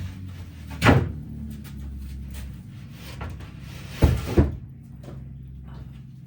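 Wooden knocks and bumps, as of cabinet parts being handled and set down. Three louder knocks stand out, one about a second in and two close together around four seconds in, with a few softer taps between them over a low steady hum.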